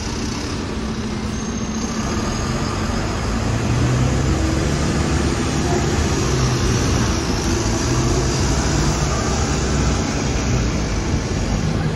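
Hong Kong double-decker tram running along the street, heard from on board: a steady low hum and rumble that grows louder a few seconds in, with road traffic around it.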